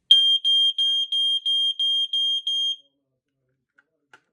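Battery-powered smoke alarm sounding during a test: a loud, high-pitched piezo beep pulsed rapidly, about three beeps a second, for just under three seconds, then stopping suddenly. It reads 112.4 dB on a decibel meter.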